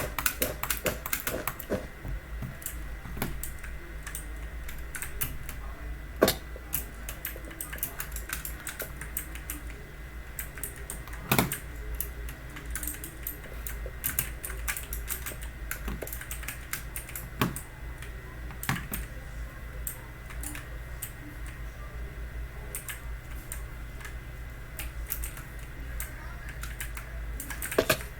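Typing on a Logitech mechanical keyboard with clicky, blue-style switches: a steady run of keystroke clicks, with a few louder strokes standing out.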